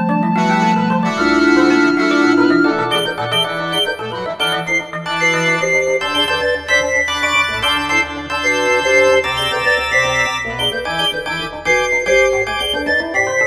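Instrumental keyboard music with an organ-like sound. A few low notes are held at the start, then many quickly changing notes follow.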